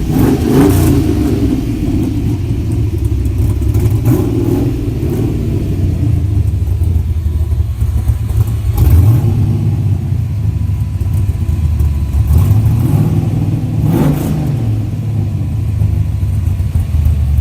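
1968 Dodge Charger engine running as the car is driven, a steady low rumble whose note rises and falls a few times as it revs.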